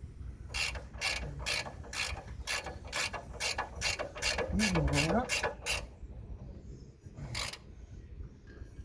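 Ratchet wrench clicking in a steady run of about fourteen clicks, roughly three a second, then a single click about two seconds later, as bolts are run in by hand.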